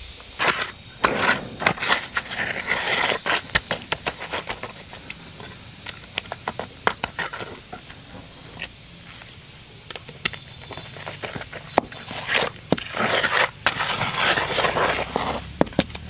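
Wooden hand float scraping and rubbing over a wet concrete slab as it is smoothed. The gritty scraping comes in two spells, one near the start and one near the end, with scattered clicks of grit between them.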